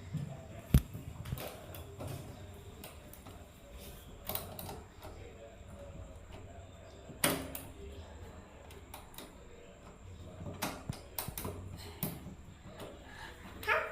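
Scattered sharp knocks and clicks at irregular intervals: a loud knock about a second in, another past the middle, and a quick cluster a few seconds before the end.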